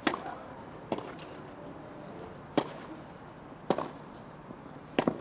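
Tennis rally: the ball struck back and forth with rackets, a run of five or six sharp pops about a second or more apart, two of them close together near the end.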